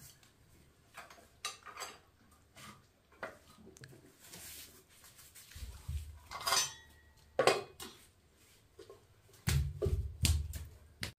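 Dishes and cutlery clinking and clattering at irregular intervals as a meal is cleared away, with heavier knocks about halfway through and again near the end.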